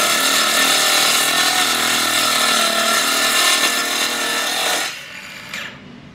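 Circular saw cutting through a quarter-inch UHMW polyethylene plastic sheet: a loud, steady whine with a rasping cut. It stops about five seconds in, with a brief falling whine as the blade spins down.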